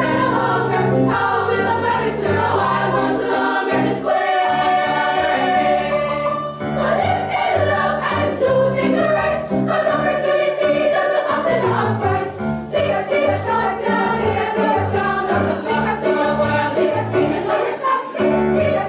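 School choir singing a song in several sustained, changing notes.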